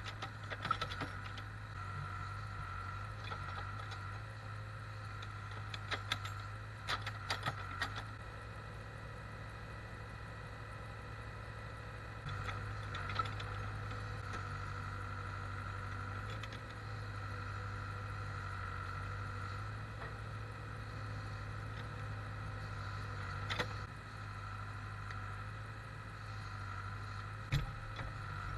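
Case backhoe's diesel engine running steadily while the hoe digs, with scattered metallic clanks and rattles from the bucket and linkage, clustered about six to eight seconds in.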